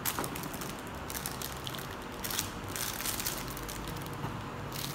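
Hands rummaging through a cardboard box of plastic-wrapped accessories: plastic wrapping crinkling and rustling in short, irregular bursts.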